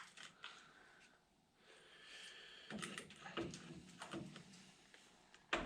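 Faint, scattered clicks and knocks of metal parts and hand tools being handled.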